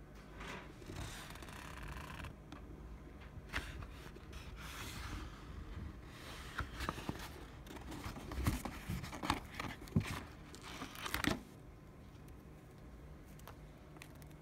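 Sheet material tearing and crinkling in irregular bursts with sharp clicks, stopping about eleven seconds in, over a faint steady low hum.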